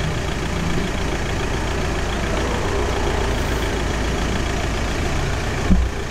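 Steady street traffic noise with an engine running, and a single low thump near the end.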